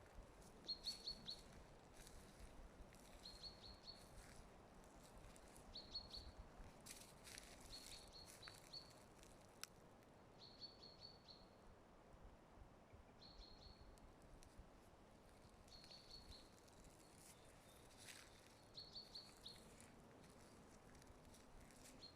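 Faint songbird repeating a short phrase of a few quick high notes about every two to three seconds, over a low steady outdoor hush with a few faint crackles.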